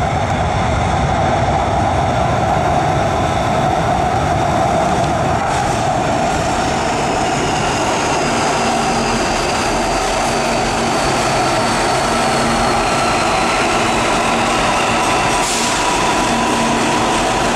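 CPTM Série 8500 electric multiple unit arriving alongside the platform, with steady running noise and a high whine that slowly falls in pitch as the train slows. A brief hiss comes about five seconds in and again near the end.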